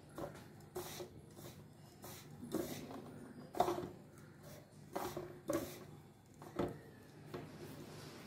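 A dry mix of grated coconut, powdered sugar and cardamom powder being stirred in a bowl: soft scraping with a scattering of light knocks, over a faint steady hum.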